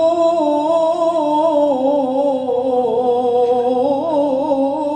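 A man's voice in melodic Quranic recitation (tilawah), holding one long ornamented line without a break. The pitch wavers in fine turns, sinks slowly through the middle and rises again about four seconds in.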